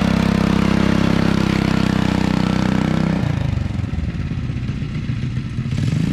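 Small engine of a cyclekart built as a replica of the 1929 Bob Gerard Riley Special, running steadily as the kart pulls away. After about three seconds it fades and wavers as the kart drives off down the driveway, then grows a little stronger again near the end.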